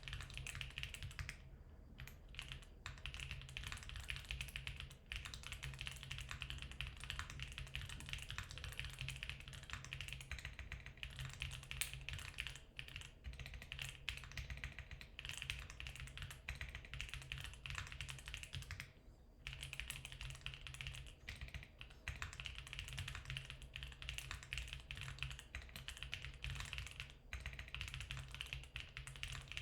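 Fast continuous typing on a Geon Works F1-8K mechanical keyboard with factory-lubed Geon HG Black linear switches in a 1 mm aluminium plate: a dense run of key clicks and thocks, with a brief pause about 19 seconds in.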